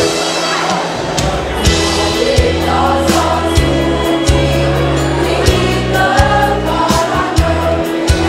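Women's choir singing a march-style anthem, with instrumental accompaniment underneath: held low bass notes and a steady beat of sharp strikes.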